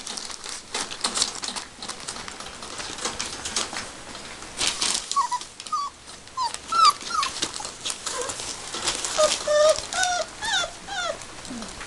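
Airedale terrier puppies whimpering, a string of short high whines and yips in quick succession from about five seconds in, over scratching and rustling of paws on newspaper.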